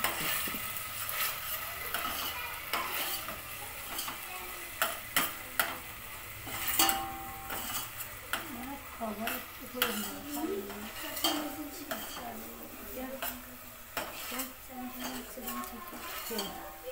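A metal spoon stirring in a stainless-steel pot on a gas stove, clinking and scraping against the sides again and again, over the steady sizzle of onion, garlic and ginger frying inside.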